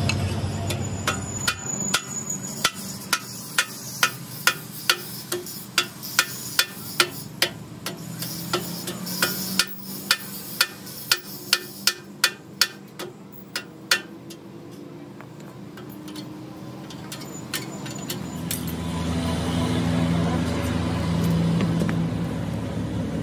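Hammer blows on steel truck axle parts: a run of sharp metallic strikes, about two a second, which stops after roughly twelve seconds. Near the end a low steady hum comes up.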